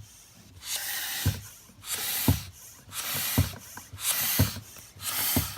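Air pump inflating a balloon: five even strokes about a second apart, each a hiss of air ending in a short low thump.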